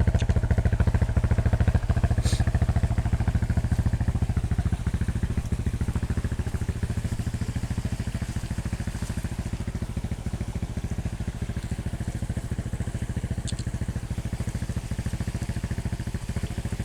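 Motorcycle engine idling with an even pulse. It gets slightly quieter about five seconds in, and two faint high ticks sound along the way.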